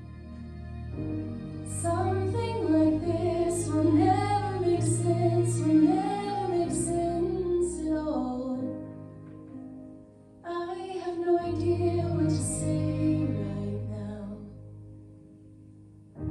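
A young woman singing a gospel song solo into a microphone over a soft instrumental accompaniment. She sings two phrases with a short pause between them, and the backing fades down near the end.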